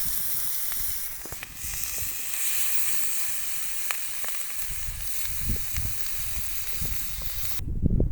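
Chicken sizzling on a hot marble cooking stone: a steady frying hiss with small scattered pops. The sizzle cuts off abruptly near the end and gives way to low, irregular knocks.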